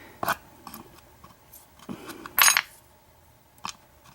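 Small metal clicks and clinks of padlock pins and parts being handled on a desk, with one louder metallic clink about two and a half seconds in.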